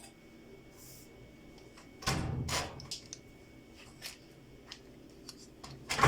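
Two sudden loud knocks, one about two seconds in and a louder one near the end, each followed by a brief clatter, with scattered small clicks between them.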